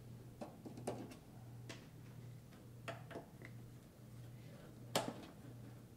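Screwdriver turning out the cover screws of a metal instrument case: scattered small ticks and clicks, with one sharper click about five seconds in.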